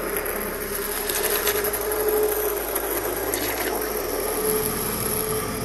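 Handheld immersion blender running steadily, puréeing cooked leek, potato and cauliflower soup until creamy: a constant motor whine over churning liquid, with a few short clicks.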